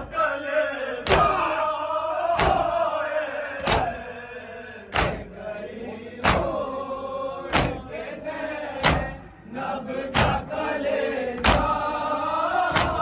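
Crowd of men beating their chests in unison in matam, one loud slap about every 1.3 seconds, with a group chanting a mourning lament (noha) between the strokes.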